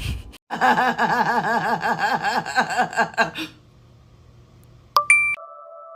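A fast, unbroken run of laughter, about eight pulses a second for about three seconds, after a brief knock at the start. Near the end comes a sharp electronic beep that settles into steady tones.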